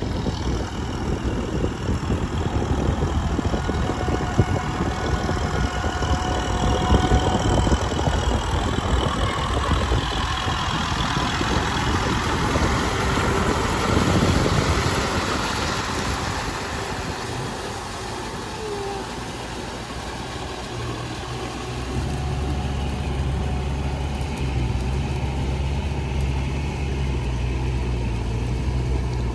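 Kubota M6040SU tractor's four-cylinder diesel engine running under load as it drags a rotary tiller through flooded paddy mud. It grows louder as the tractor passes close about halfway through, and settles into a steadier low drone in the last third.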